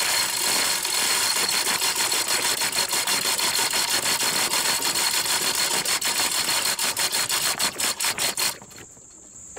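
Manual chain hoist being hauled up by its hand chain, giving a fast, continuous clicking as it lifts the front corner of a buggy. The clicks space out near the end and stop shortly before the end.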